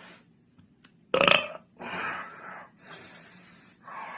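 A man's loud, pitched belch about a second in, followed by a few quieter breathy exhales.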